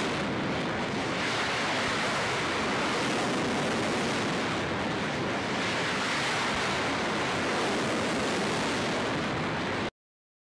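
Steady rushing roar of missile rocket boosters firing as missiles launch from a warship's deck, swelling slightly now and then and cutting off suddenly near the end.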